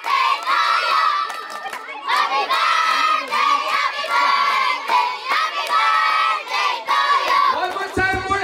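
A group of children shouting together in loud phrases, with hand-clapping mixed in.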